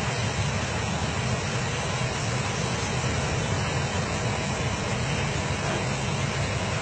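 Steady low roar of noise, heaviest in the low end, with no distinct events.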